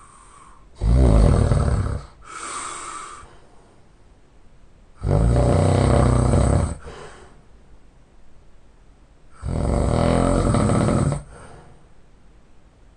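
A person's loud, heavy snoring: three long snores about four seconds apart, each lasting about a second and a half, the first followed by a shorter, quieter one.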